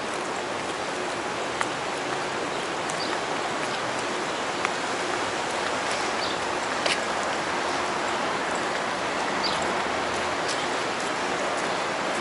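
Steady outdoor ambient hiss of a city park while walking, with a few faint short bird chirps and some sharp clicks.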